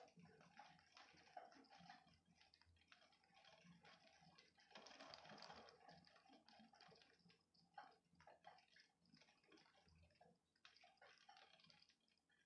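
Faint rain during a thunderstorm: irregular drips and small ticks of falling water, a little denser about halfway through.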